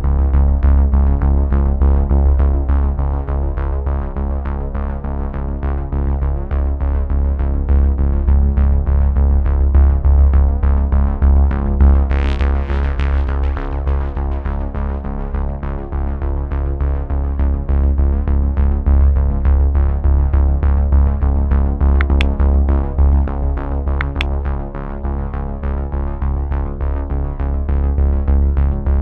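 Background electronic music: steady synthesizer chords over a strong bass, with a quick repeating pulse of notes.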